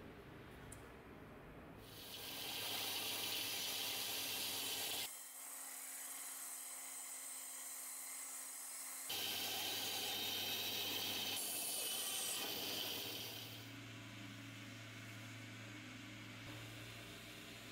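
Power tools shaping wooden handle scales on a steel axe tang: a band saw cutting through the wood, then a belt grinder's motor running with a steady low hum as the handle is sanded. The sound changes abruptly several times, with loud hissing stretches of cutting and sanding.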